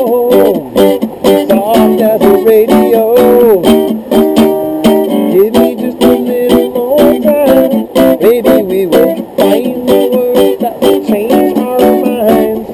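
Instrumental guitar break: a plucked guitar melody with bent notes, played without singing.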